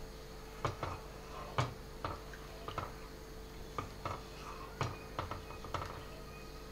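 A slotted plastic spatula stirring a thin fish curry in a nonstick pan, knocking and scraping against the pan in irregular clicks, over a faint steady hum.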